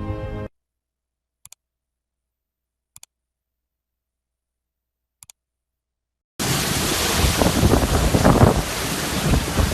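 Silence with a few faint clicks, then about two-thirds through, hurricane wind buffeting the microphone cuts in suddenly, loud and gusting.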